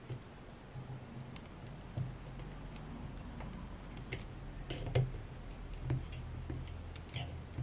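Irregular small clicks and scrapes of pliers gripping and tugging at wires and insulation inside an electric scooter hub motor's stator, over a faint low hum.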